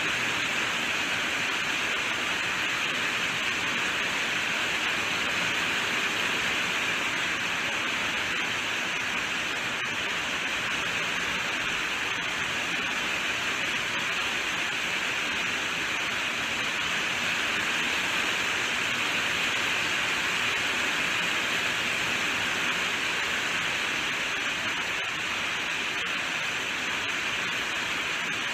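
Steady heavy rainfall, an even hiss without separate drops standing out or breaks, brightest in the upper range.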